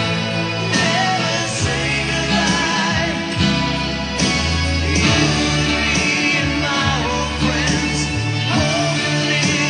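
Music: a singing voice with vibrato over guitar and sustained bass notes.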